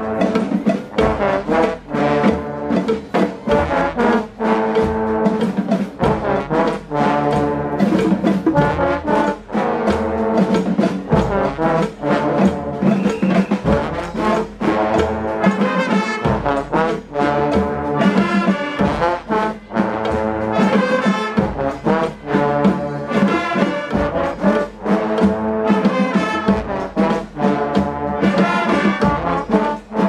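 Street brass band playing a tune, led by a section of trombones with other horns, over a regular percussive beat.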